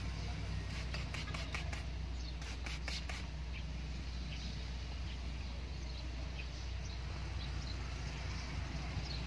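Hand-held trigger spray bottle spraying soapy water onto a car window glass: a rapid run of about a dozen short sprays that stops about three seconds in. A steady low hum runs underneath.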